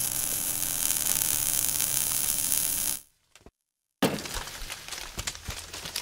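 Logo-intro sound effects: a steady hiss over a low hum that cuts off suddenly about three seconds in, then about a second of silence, then a sudden hit followed by a scatter of short clicks and crackles as the logo appears.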